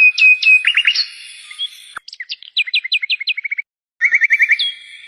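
Budgerigars chirping: rapid runs of short, falling chirps over a steady high note. The sound cuts off abruptly twice, about two seconds in and again after another second and a half.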